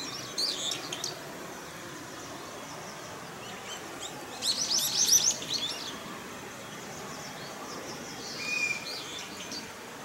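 Wild songbirds singing: a rapid run of high chirping notes about four and a half seconds in is the loudest, with shorter chirp bursts near the start and a brief held whistle followed by chirps near the end, over a steady faint outdoor hiss.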